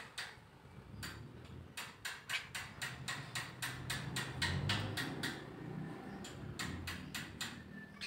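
Short, sharp clicking calls from birds foraging in garden undergrowth, coming in irregular runs of several a second, over a faint low hum.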